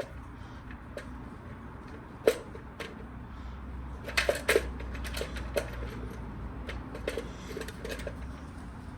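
Light clicks and taps of an HEI distributor cap being handled and set down onto the distributor, with a sharper knock about two seconds in and a quick cluster of clicks a little before the middle, over a steady low hum.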